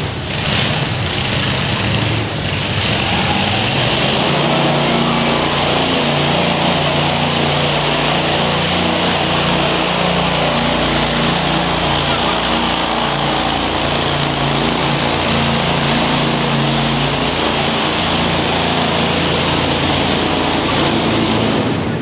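Small single-driver quarter-scale pulling tractor's gasoline engine running hard under load as it drags a weight sled, a steady drone that holds one pitch.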